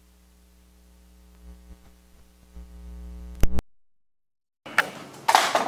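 Steady electrical mains hum with a few soft knocks as papers are handled on a desk, ending in a sharp click about three and a half seconds in. The sound then cuts out completely for about a second and comes back with loud, close rustling of paper being handled.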